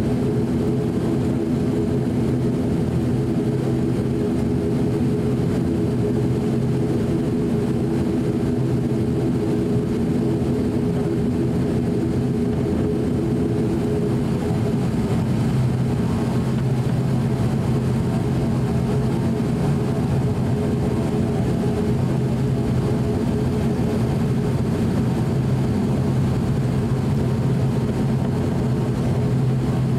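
Steady drone of an ATR 42-600's Pratt & Whitney PW127 turboprop engines and six-bladed propellers at taxi power, heard inside the cabin, with several steady humming tones. About halfway through, the blend of tones shifts as the higher ones change.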